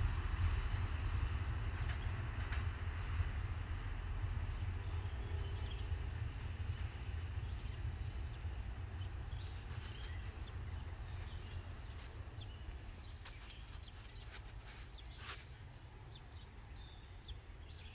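A freight train of trash cars rolling away into the distance, its low rumble and wheel noise fading steadily. Birds chirp a few times over it.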